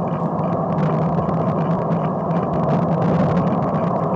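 Steady, muffled rumble of a bicycle being ridden in heavy rain: wind and wet-tyre noise on the camera's microphone, with a low, even hum.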